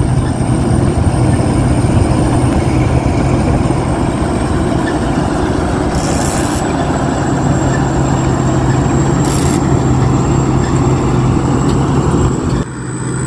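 Rice combine harvester running steadily under load, with a steady engine hum and a thin high whine. Brief hissing rushes come about six and nine seconds in.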